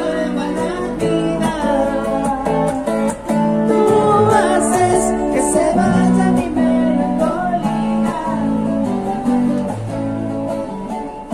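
A man singing and strumming a guitar: a live song played in a metro carriage.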